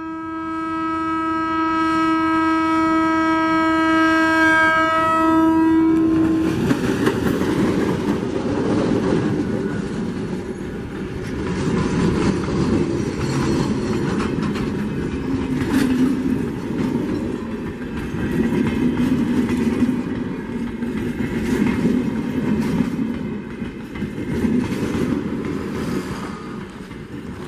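Train horn of the Tren Patagónico's GT22 diesel locomotive sounding one long steady note for about six seconds. Then the train running on the rails: a loud rumble with the clatter of wheels over the track.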